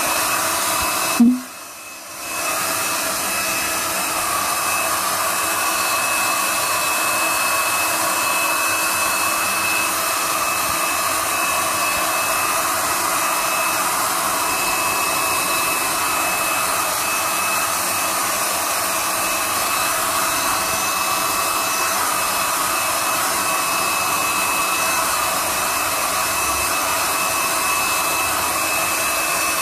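Electric heat gun running steadily, its fan giving an even rushing blow with a thin steady whine, as it plays hot air over a frame of sealed honeycomb to melt the wax cappings. The sound cuts out sharply for about a second near the start, then resumes.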